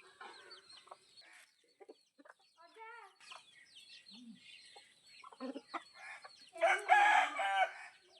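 Chickens clucking with small high chirps. Near the end a rooster crows once, loud, for a little over a second.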